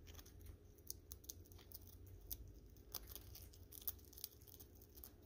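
Green-winged macaw nibbling a cheese cracker held in its foot: faint, irregular crunching clicks as its beak breaks off small pieces.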